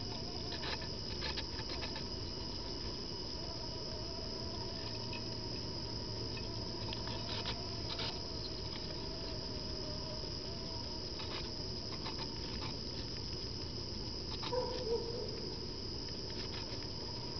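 Small rodents feeding on a rind on a dish: scattered light clicks and scratches of nibbling and shuffling, over a steady background hiss with a constant high whine. There is a brief louder sound near the end.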